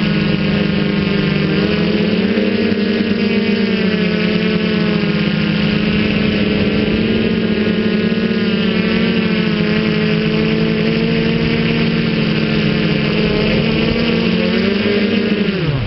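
Feiyu Tech Y6 Scorpion hexacopter's six propellers and motors whining steadily in flight, the pitch wavering a little with throttle. Near the end the pitch falls sharply as the motors spool down.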